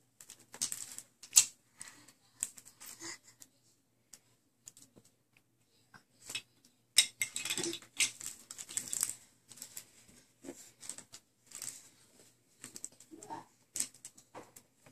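Irregular light clicks, taps and rustles as babies handle a white plastic laundry basket, and the plastic toys on and around it, on a carpeted floor.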